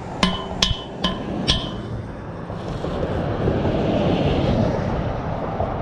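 Four quick, sharp metallic clinks with a short ringing tone, metal striking metal, in the first second and a half. Then a rush of passing traffic swells and fades.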